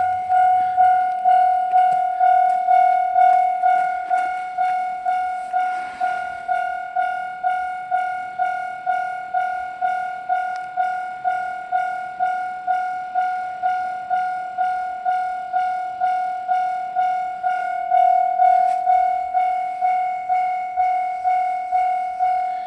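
Japanese level-crossing warning bell ringing: a steady, evenly repeated electronic ding at about two to three strokes a second, the signal that the crossing is closing for a train.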